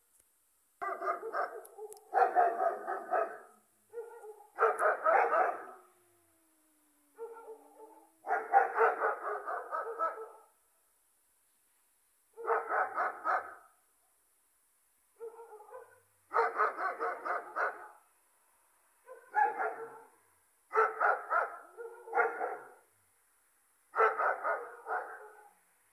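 Dogs barking in volleys of quick barks, a fresh volley every few seconds. Between two volleys a faint, low, drawn-out cat yowl slides down and back up, nearly drowned out by the barking.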